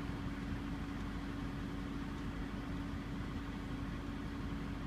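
A steady machine hum, one constant tone over an even rumbling noise, unchanging throughout.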